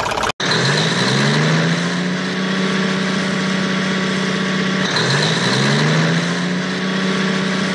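Truck engine sound effect revving up and settling to a steady run, with a second rev-up about five seconds in.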